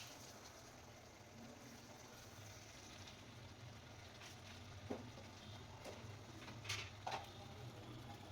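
Faint low hum with a few light clicks or taps: one about five seconds in, one about six, and two close together near seven seconds.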